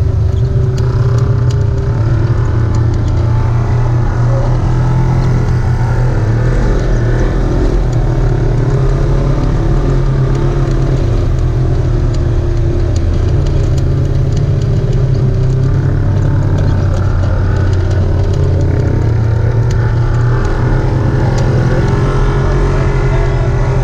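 Off-road vehicle engine running steadily at fairly low revs, its pitch drifting slightly up and down with the throttle.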